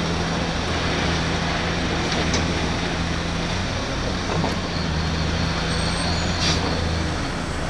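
Heavy diesel earthmoving machinery running steadily, a continuous low engine drone, with one short sharp sound about six and a half seconds in.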